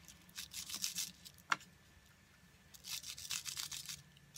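Water-brush bristles brushing ink across plastic bubble wrap in two runs of quick scratchy strokes, with one short sharp tick about a second and a half in.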